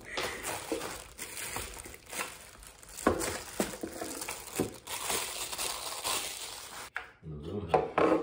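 Plastic packaging crinkling and rustling as new plastic pet-feeder bowls and tray are unwrapped, with light clicks of plastic parts. The crinkling stops abruptly about seven seconds in, and a few soft knocks follow.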